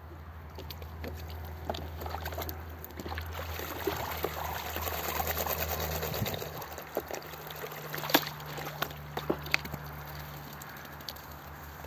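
Water splashing and sloshing in a plastic tub as Muscovy ducks bathe in it, with water pouring in from a garden hose. The splashing is busiest in the middle, with a few sharp splashes after that, over a low steady hum.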